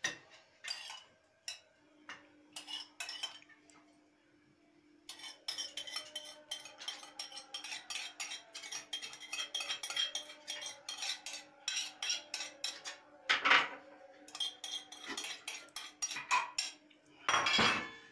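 A metal spoon scraping and tapping against a glass bowl and metal plates while garlic yogurt is spooned and spread over bread. It makes a busy run of quick clicks and scrapes, with two louder knocks, the second near the end.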